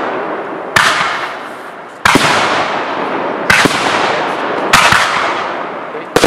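Aerial firework shells of a large display: five loud bangs a little over a second apart, each trailing off in a fading hiss.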